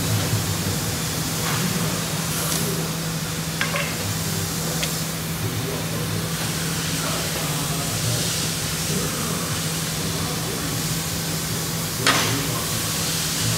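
3200-watt Trumpf TruLaser 2030 CO2 laser cutting machine running: a steady hum under a constant hiss, with a few sharp clicks, the loudest about twelve seconds in.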